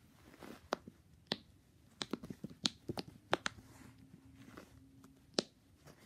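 Silicone push-pop fidget toy, its bubbles pressed in by fingertips, giving a string of about a dozen short sharp pops at an uneven pace, bunched together in the middle.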